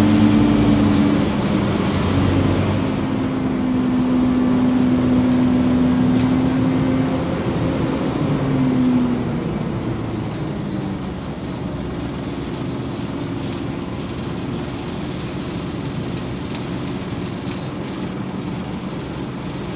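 Scania OmniCity city bus running, heard from inside the passenger saloon. For about the first nine seconds its drone carries a few tones that shift pitch. It then eases off and settles into a quieter, steady run.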